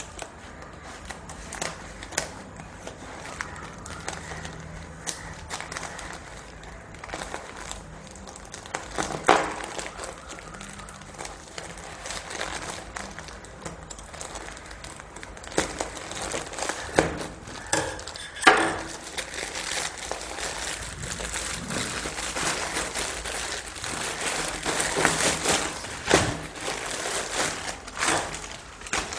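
Scissors cutting through a plastic courier mailer while the plastic crinkles and rustles, with irregular sharp snaps and crackles. The crinkling grows busier and louder in the second half as a cloth in a clear plastic bag is pulled out.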